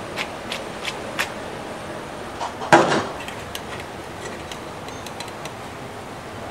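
Kitchen work at the pass: a few light metallic clicks of tongs and a stainless steel sauté pan, with one louder clatter about three seconds in, over steady kitchen hum.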